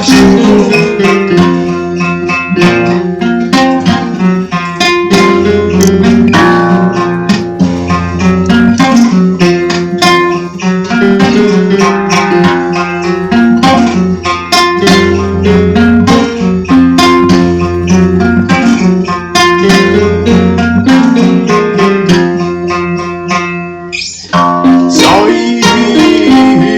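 Dark folk music: fingerpicked acoustic guitar over low sustained bass tones. Near the end the music briefly thins out, then comes back in.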